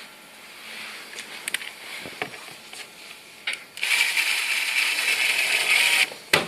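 Light clicks and knocks from handling metal frame parts, then a cordless power screwdriver runs steadily for about two seconds, driving a screw into the display frame. A sharp click comes just after it stops.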